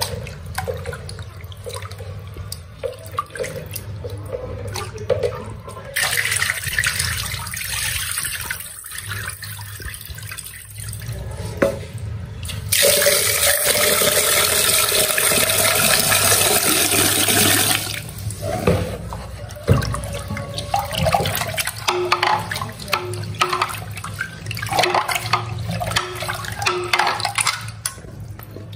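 Water running from a kitchen tap and splashing into a sink or vessel. The flow is strongest and steadiest for about five seconds in the middle, with scattered light knocks and splashes around it.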